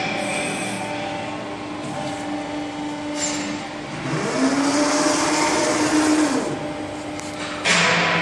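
Hydraulic CNC press brake (160-ton, twin-cylinder downstroking ram) running with a steady pump hum. From about four seconds in, a hiss and a shifting drone last for about two seconds as the ram strokes. A sudden loud hiss comes near the end.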